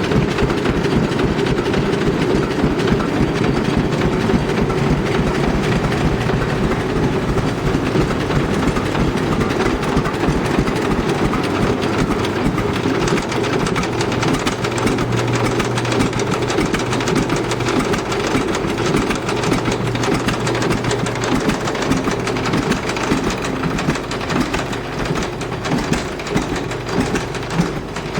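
1948 John Deere A's two-cylinder engine running with a steady, rapid exhaust beat, throttled back to see if it will idle. Over the last few seconds the beats become more uneven and a little softer.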